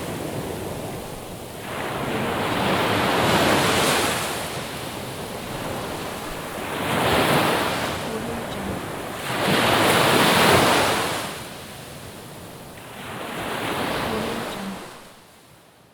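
Sea waves breaking on a shore, the surf swelling and washing back in repeated surges every three to four seconds, with the loudest wave about ten seconds in; the sound fades out near the end.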